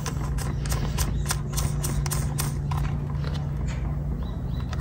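Quick, irregular plastic clicks and taps, mostly in the first half, as a plastic 12 V accessory socket panel is handled and its wired sockets are pushed back into place.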